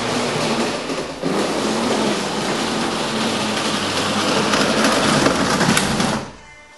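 LGB garden-scale model tram's electric drive whirring, with its wheels rolling on the track, on a test run of the motorisation. It gets louder as the tram comes close, then cuts off suddenly about six seconds in as it stops.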